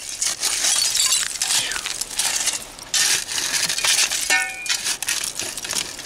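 A pick chopping repeatedly into a trash layer of dirt and broken glass, with glass clinking and crunching at each strike.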